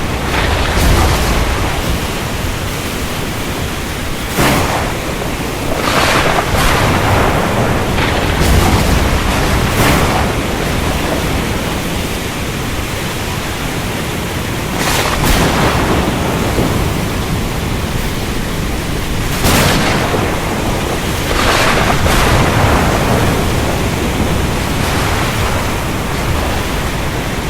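Thunderstorm over the ocean: a steady loud rush of wind, rain and surf, broken every few seconds by sharp cracks of thunder, some in quick pairs.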